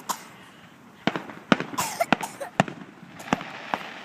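Fireworks going off: a run of sharp bangs and pops at uneven intervals, about eight of them, bunched most tightly in the middle.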